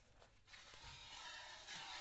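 Faint hiss of milk streams squirting from a cow's teats into a steel pail during hand-milking, starting about half a second in.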